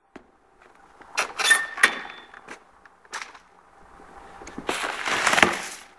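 Handling noises as loose wheels are lifted out of a steel shipping cage: a few sharp knocks and clicks, one with a short squeak, then a longer scraping rush near the end.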